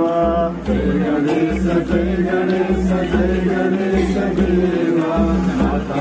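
Voices singing an aarti bhajan, a Hindu devotional hymn, in a chant-like style, over a low, regular beat.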